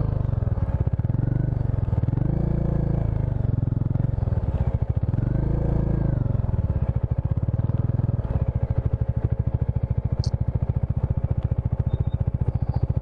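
Bajaj Dominar 400's single-cylinder engine heard from the rider's seat while riding. Its pitch rises and falls twice as the throttle is opened and closed. Over the last few seconds it settles into a steady low, even beat at low speed.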